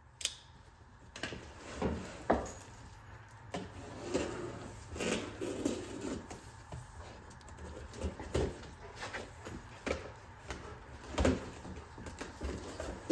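A cardboard chainsaw box being handled and opened by hand: irregular knocks, scrapes and rustling of the cardboard, with a sharper knock about 11 seconds in.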